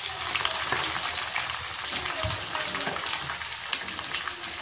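Vinegar-marinated milkfish (bangus) frying in hot oil in a small steel wok: a steady sizzle dense with fine crackles and pops.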